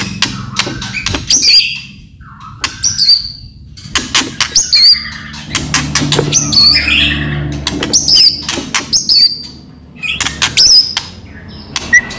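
White-rumped shama in full song: rapid, loud, dry clicking and rattling calls mixed with short whistled notes that hook up and down in pitch. The song comes in bouts, with brief lulls about two seconds in and again near ten seconds.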